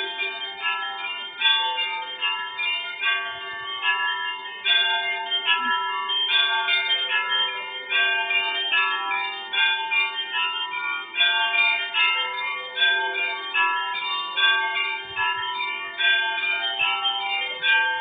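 Church bells ringing: many bells of different pitch struck in quick, uneven succession over a steady low hum.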